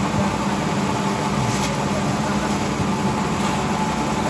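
Several grass chopper machines (forage choppers) running together, their engines droning steadily as they shred grass.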